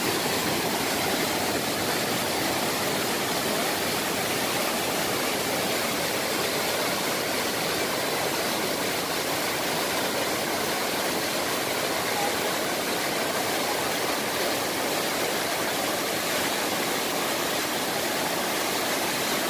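Waterfall cascading down rock ledges: a steady, even rush of falling water.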